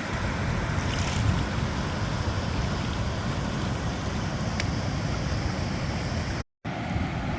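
Steady outdoor rushing noise of wind buffeting the microphone over moving water, broken by a brief dropout near the end.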